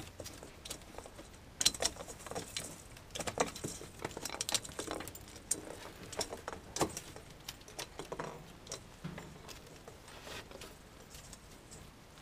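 Yorkshire terriers moving about on a wooden deck among cut pine branches: irregular sharp clicks, jingles and rustles, the loudest about a second and a half in.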